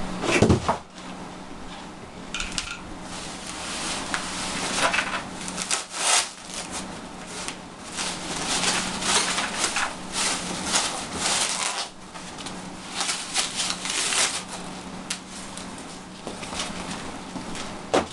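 Plastic packing sleeves rustling and crinkling as foam model airplane parts are pulled out of them and handled, in irregular bursts, with a thump about half a second in.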